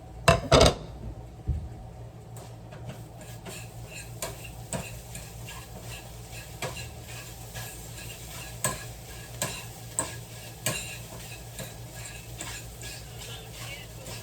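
A utensil stirring and scraping scrambled eggs in a frying pan, with sizzling and irregular light taps against the pan. About half a second in, a loud clatter of dishes.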